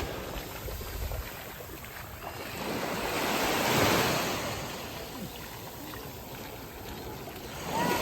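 Surf breaking on a beach: a wave swells up and washes out about halfway through, and the next one starts building near the end.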